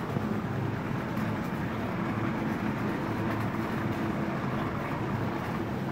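Shopping trolley wheels rolling across a hard supermarket floor: a steady rolling rumble.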